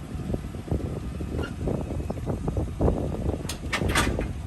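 The RV's electric stabilizer jacks running as the leveling system is reset, with a low mechanical rumble and a quick cluster of clicks about three and a half seconds in.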